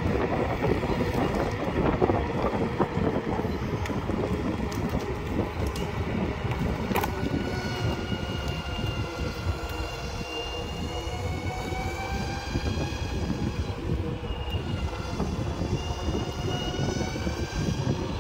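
Skateboard wheels rolling over asphalt with wind buffeting the microphone. About halfway through, a whine joins in, drifting slowly up and down in pitch; it drops out briefly and comes back.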